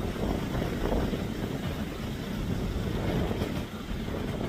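Boeing 777-300ER's twin GE90-115B jet engines running at taxi power as the airliner rolls slowly along the runway: a steady low rumble.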